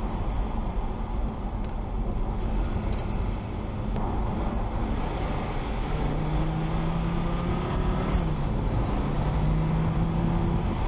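Audi TT RS's turbocharged five-cylinder engine driving along over steady road and tyre rumble. From about halfway the engine note comes up and holds a steady pitch, dipping briefly once before settling again.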